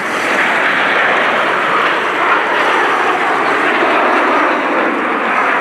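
Jet noise from a formation of Aermacchi MB-339 PAN jets flying past, their Rolls-Royce Viper turbojets making a steady rushing noise that grows louder right at the start and then holds.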